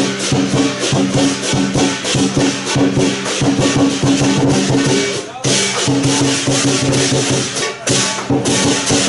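Chinese lion dance percussion: a big drum beaten rapidly with crashing cymbals, played loud, with short breaks about five and eight seconds in.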